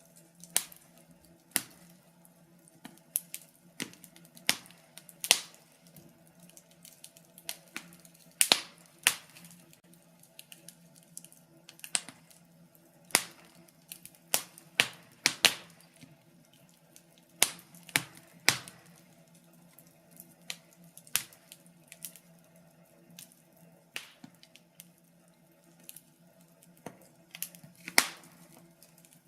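Wood fire in a fireplace crackling, with irregular sharp pops and snaps, some much louder than others, over a faint steady hum.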